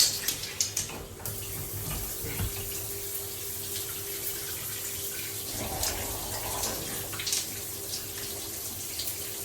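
Shower water running steadily, spraying and splattering in an even hiss, with a faint steady hum underneath.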